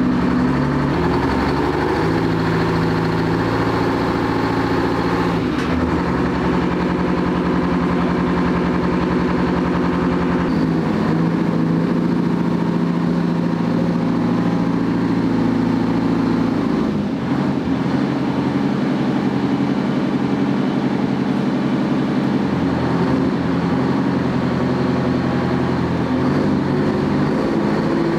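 Restored WW2 Grant tank's engine running steadily. Its speed shifts to a new setting several times, about five, ten and seventeen seconds in.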